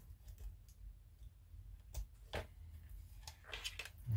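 A few faint clicks and short handling rustles over a low steady hum: small parts and wiring being handled at the workbench during an LED light test.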